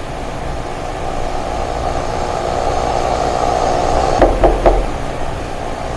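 A steady low droning ambience, then about four seconds in three quick knocks on a wooden door.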